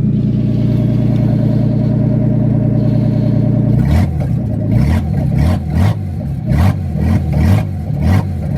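Ford Probe GT's 2.5-litre V6 running loud with no exhaust system fitted: a steady idle, then from about four seconds in a rapid string of short throttle blips, the revs rising and falling about eight times.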